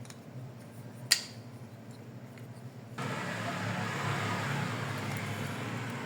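A single sharp click about a second in, then a steady noise that starts abruptly about three seconds in.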